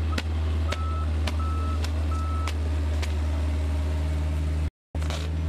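Heavy construction vehicle's engine running steadily, with its reversing alarm beeping about every 0.7 s for the first two and a half seconds, then stopping. Regular clicks come about twice a second, and the sound drops out for a split second near the end.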